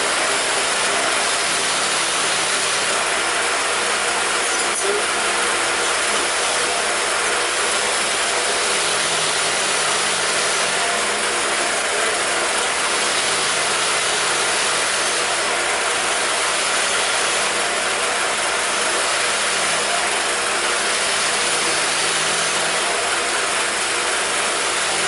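Power wire brush running steadily as it scrubs light corrosion off air-cooled VW engine valves: a constant loud, hissing, grinding noise.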